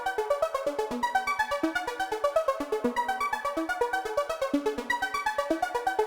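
Background electronic music: quick, even synthesizer notes over a steady pulse.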